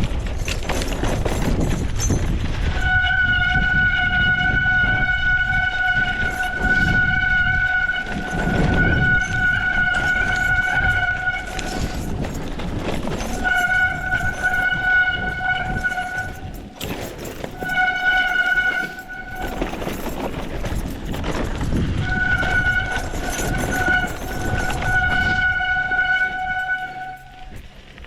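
Mountain bike brakes squealing with a steady pitched howl in four long stretches as they are applied and released, over the low rumble of the bike rolling down a rough trail.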